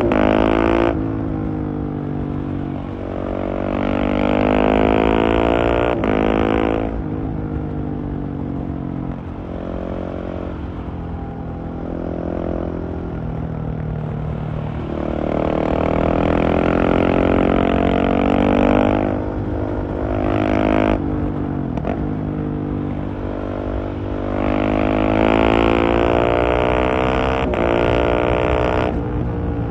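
Husqvarna 701's single-cylinder engine through a LeoVince Nero exhaust, ridden hard: three long pulls where the pitch climbs as it accelerates, each cut off sharply when the throttle closes, with quieter, lower running between them.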